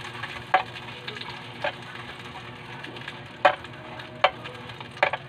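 Hot dogs frying in oil in a pan, a steady sizzle with about five sharp pops or clicks spread through it.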